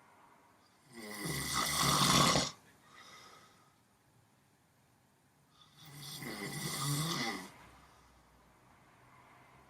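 Someone asleep snoring: two long snores about four seconds apart, each lasting about a second and a half, the first louder.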